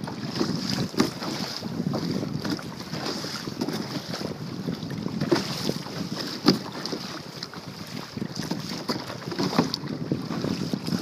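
Kayak paddle strokes splashing in the water, repeating about once a second, with wind on the microphone. A sharp knock about halfway through.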